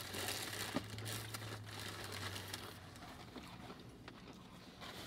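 Paper food wrapping and a paper takeout bag crinkling and rustling as a chicken sandwich is unwrapped, busiest in the first few seconds, over a low steady hum that fades out a little past halfway.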